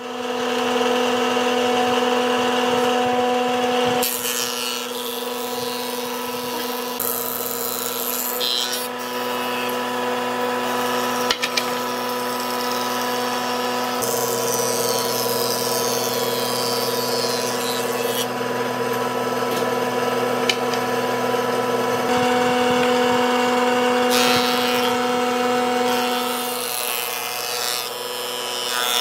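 Old cast-iron Noto Kikai thickness planer running with a steady hum while boards are fed through it in several passes. Each pass adds a loud rushing noise as the cutterhead shaves the wood.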